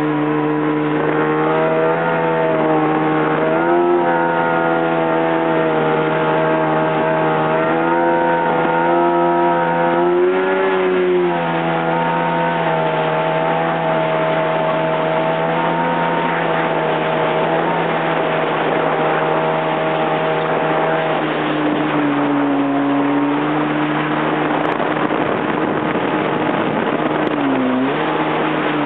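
Yamaha jet ski engine running fast: a steady drone that rises and falls slightly in pitch, over the rush of wind and water. About three quarters of the way through, the engine note drops and the rushing noise comes to the fore.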